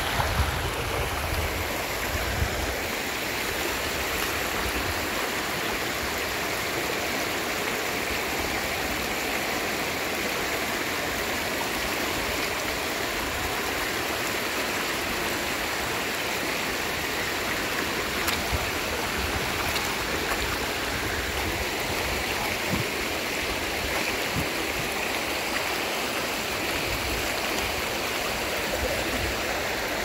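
Steady rushing of flowing water, as of a stream, at an even level throughout.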